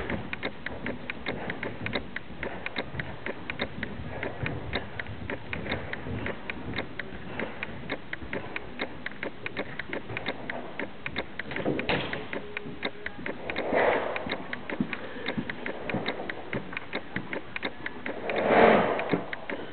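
A loose horse's hooves striking the arena footing in a fast, even run of ticks, about four or five a second. Louder swells of noise come through twice, about halfway and near the end.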